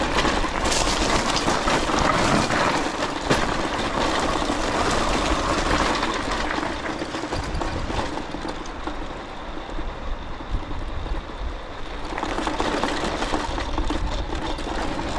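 Tomos A3 moped riding over a rough gravel track: its small two-stroke engine running steadily under a constant clatter of the frame and parts rattling and the tyres on loose stones.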